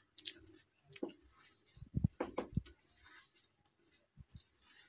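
A hand kneading a damp mixture of soaked poha, grated vegetables and cornflour in a glass bowl, making faint squishing and soft crackling sounds, with a few louder ones about two seconds in.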